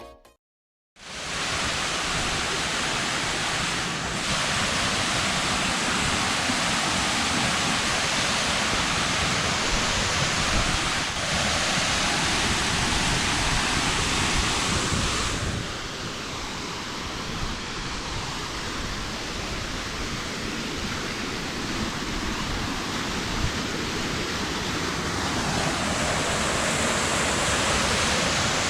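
Waterfall: steady rushing of falling water. It starts about a second in and changes in tone a few times where the recording cuts.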